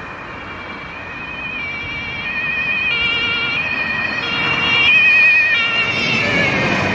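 German police car's two-tone siren (Martinshorn) switching back and forth between two pitches, growing louder as the car approaches and drops in pitch as it passes and drives away: the Doppler effect. Road and traffic noise underneath.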